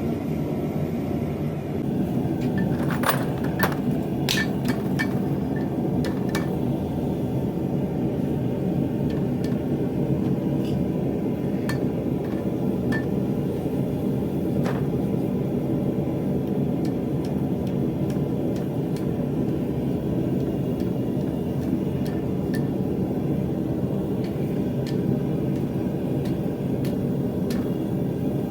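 A steady low roar with scattered light metallic clinks and taps, most of them in the first half.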